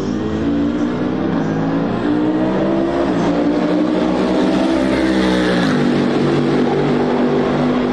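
Twin-turbo V8 of the Toyota/Lexus GR GT3 race car accelerating toward and past, its engine note climbing in pitch and then dropping sharply about two-thirds in as it goes by.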